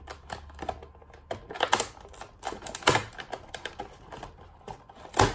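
Scissors snipping and cracking at hard plastic toy packaging: irregular sharp clicks, the loudest about three seconds in and another at the end.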